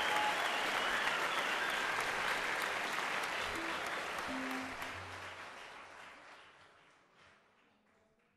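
Concert audience applauding as the band's last notes die away, the clapping fading out over the last few seconds.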